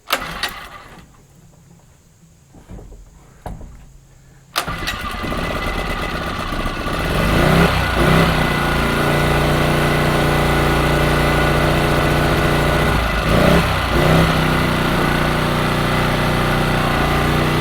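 Small four-stroke engine of a Champion 1400-watt portable generator pull-started on choke for its first start. After a pull and a few clicks it catches about four and a half seconds in. It runs up to steady running speed, its speed dipping and recovering briefly twice.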